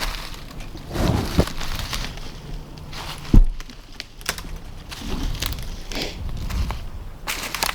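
Footsteps of a person walking over the ground, with irregular crunching and rustling, and one heavy thump about three and a half seconds in.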